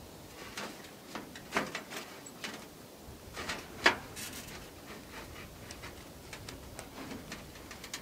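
Hands handling a wire-mesh guard on a stovepipe and the surrounding tent cloth: light rustling with scattered small clicks, the sharpest about four seconds in.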